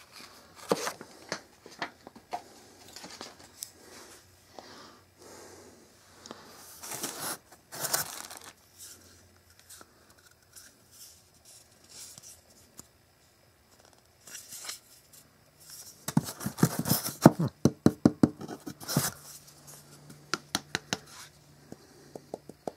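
Cardboard and foam TV packaging handled by hand: rustling, scraping and tearing. A quick run of sharp clicks and crackles comes about three-quarters of the way through.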